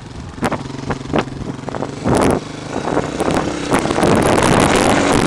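Dirt bike engine running at a steady low pitch with several sharp knocks over it, then getting louder and higher from about four seconds in as the bike gets under way.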